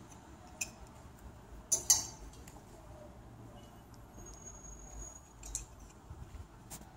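Clothes hangers clinking against a metal clothes rail as dresses are moved: a few sharp clinks, the loudest a quick cluster about two seconds in.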